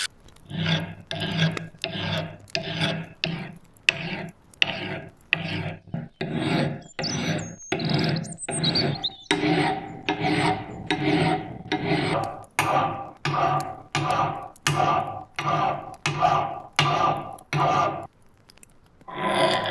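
Hand filing: a file or rasp worked in steady push strokes, about one and a half strokes a second, pausing briefly near the end.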